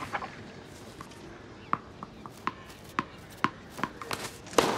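A run of light, sharp taps, about nine of them, unevenly spaced over four seconds, with the loudest one near the end.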